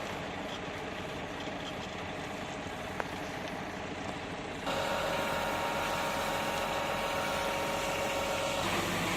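Truck engine running steadily, most likely a fire engine working the blaze. About halfway in, the sound cuts abruptly to a louder engine hum with a steady whine, and the whine stops near the end.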